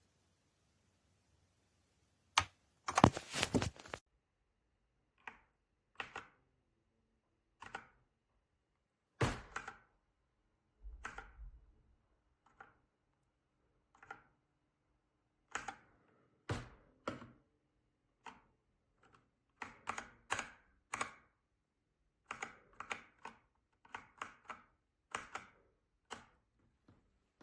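Keys of a Redragon K617 60% mechanical keyboard being pressed: irregular single clicks and short runs of keystrokes with pauses between, the loudest a dense clattering run about three seconds in.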